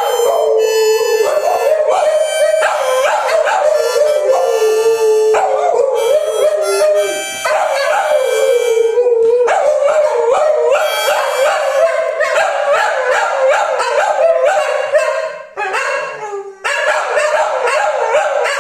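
Dogs howling along to a harmonica being played, their wavering howls mixed with the harmonica's reedy chords; the sound dips briefly about three-quarters of the way through.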